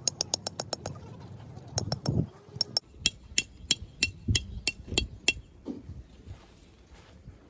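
Metal striking metal: a fast run of sharp clinks, then a steady series of ringing strikes about three a second that stops a little after five seconds in.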